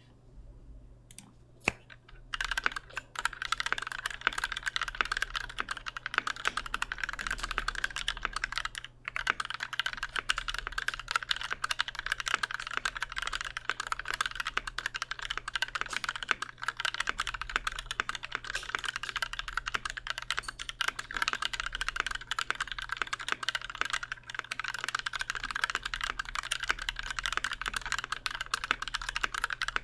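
Continuous fast typing on a Pearl 40% custom mechanical keyboard with lubed Durock/Gateron hybrid switches, a brass plate and GMK Delta keycaps. A couple of single key presses open it, then dense typing starts about two seconds in, with a brief pause near the middle.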